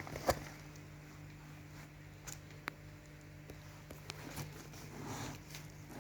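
Faint handling noise from a charging cable's plugs and their caps: a few light clicks and a soft rustle over a steady low hum.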